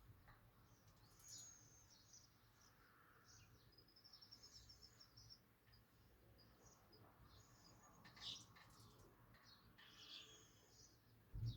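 Small cage birds chirping faintly with short high calls, including a quick trilled run of notes about four seconds in. A brief low thump near the end.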